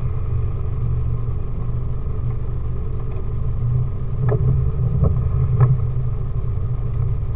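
Off-road 4x4's engine running steadily at low revs, with three short knocks a little past the middle.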